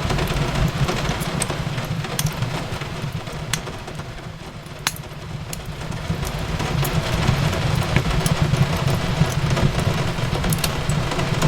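Wood fire crackling in a fireplace, with scattered sharp pops over a steady low rumble and the hiss of rain on a window. The sound eases a little around the middle, then builds back.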